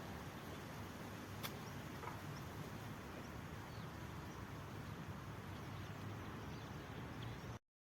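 Faint outdoor ambience: a steady low rumble and hiss with a few faint, distant bird chirps. There is a single click about a second and a half in, and the sound cuts off abruptly near the end.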